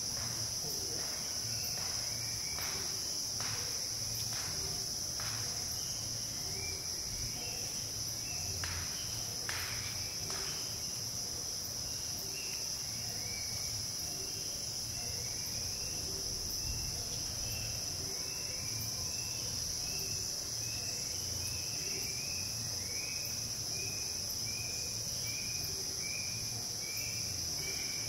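Steady high-pitched chorus of rainforest insects. From about halfway, short rising chirps repeat about once a second, and a few soft crackles come in the first ten seconds.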